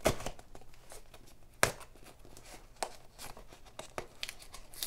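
Utility knife cutting and scraping through packing tape on a cardboard shipping box, a scratchy tearing sound broken by several sharp snaps about a second apart.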